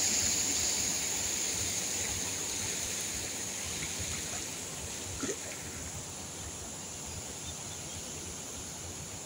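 Water of a full reservoir spilling over a concrete weir, a steady rush that slowly fades.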